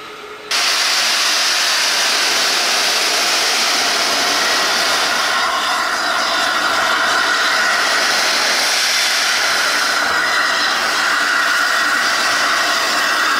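Steam locomotive blowing off steam: a loud, steady hiss that starts suddenly about half a second in and keeps on.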